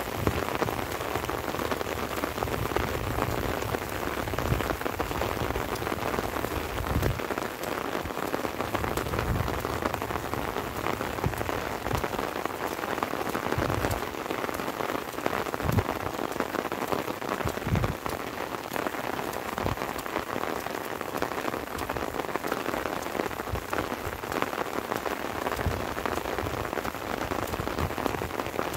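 Steady light rain falling, with many close individual drops pattering throughout. A few short low thuds come now and then.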